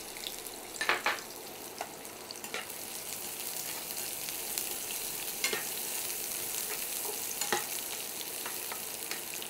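Chopped onion sizzling in hot vegetable oil in a frying pan, a steady hiss, with the spatula stirring it and now and then scraping or tapping the pan. The onion is at the start of being lightly fried.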